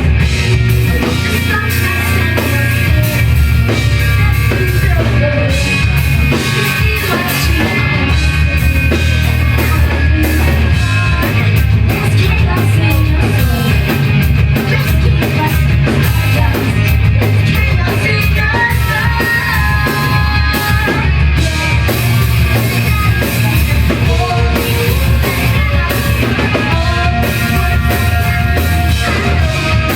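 Live rock band playing loud, with drum kit, distorted guitars and bass, and a singer.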